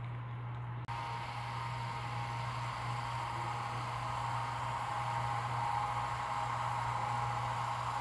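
Steady hiss with a low electrical hum. After a cut about a second in, the hiss turns brighter, with a faint steady high whine.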